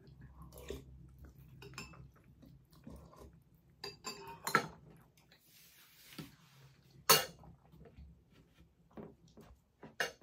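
Metal chopsticks and a spoon clinking and tapping against plastic food containers and bowls while eating: scattered separate clicks, the loudest about seven seconds in.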